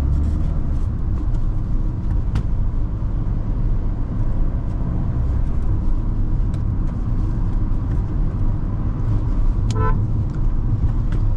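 Kia Seltos on the move, heard inside the cabin: a steady low rumble of engine and road noise. A short horn beep sounds near the end.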